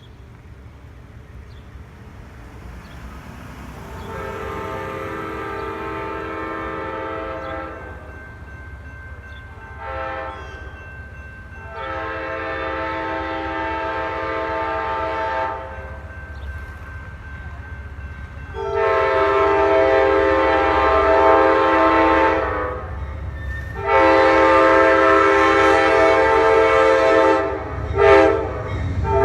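Locomotive multi-chime air horn sounding a series of blasts, mostly long with a few short ones between, getting louder as the train approaches. Under the horn the low rumble of the train builds.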